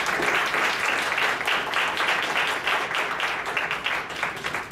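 Audience applauding at the end of a lecture, a dense patter of many hands clapping that dies away near the end.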